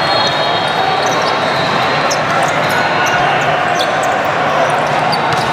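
Steady din of a large sports hall full of volleyball courts: many voices and shouts, with balls being hit and bouncing and thin high squeaks of shoes on the court.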